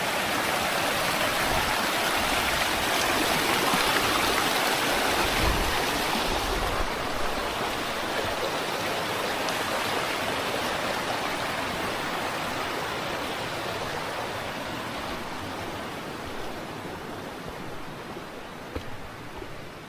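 Rushing water of a mountain stream, a steady splashing noise that is loudest in the first few seconds and then grows gradually fainter.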